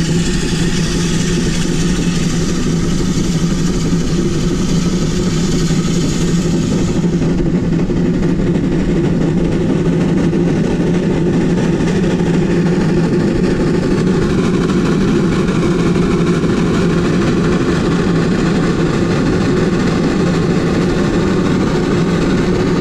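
1928 Lima Shay geared steam locomotive working at full power up a steep grade. Its exhaust and running gear make a steady, very loud sound, with a hiss that drops away about seven seconds in.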